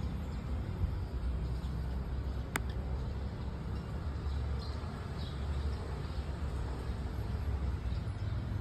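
Steady low outdoor background rumble, with one sharp click about two and a half seconds in and a few faint high chirps a little past the middle.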